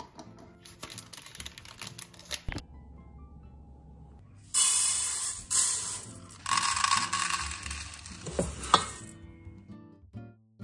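Uncooked rice being scooped from a plastic bin and poured from a plastic cup into a metal rice-cooker pot: a dry, rushing rattle of grains, in two pours about halfway through, over soft background music.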